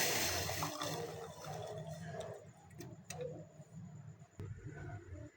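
A hiss fading out within the first half second, then a few scattered light clicks and taps over a low steady hum.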